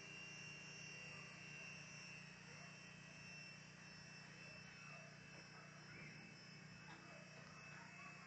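Faint, steady high-pitched whine of a small gyro-stabilised toy RC helicopter's electric motors and rotors in flight, dying away near the end.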